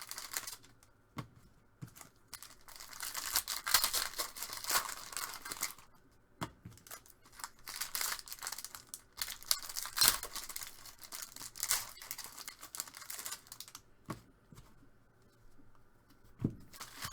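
Foil trading-card wrappers being torn open and crinkled by hand, in irregular bursts of ripping and rustling with a few sharp clicks, and a pause near the end.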